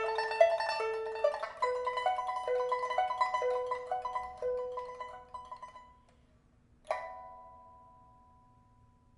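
Pipa with a steel first string and copper strings, freshly repaired with a new soundboard and frets, playing a line of quick plucked notes that fades away about six seconds in. It closes with a single struck chord about seven seconds in that rings out and dies away slowly.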